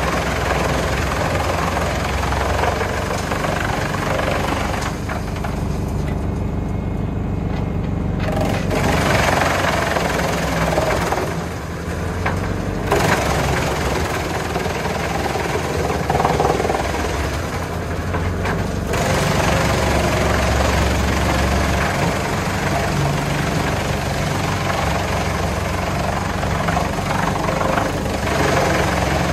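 Valtra T190 tractor running under load while driving a Junkkari HJ500 wood chipper that is chipping logs. The steady engine noise runs throughout, and the higher chipping noise falls away briefly three times before picking up again.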